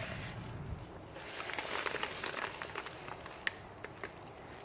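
Padded paper mailer and a clear plastic bag rustling and crinkling as a package is opened by hand, with many small crackles.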